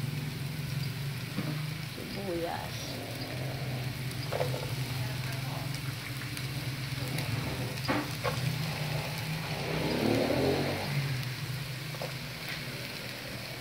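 Chopped onion and garlic sizzling in hot oil in a frying pan, over a steady low hum. A few light clicks come about four, eight and twelve seconds in.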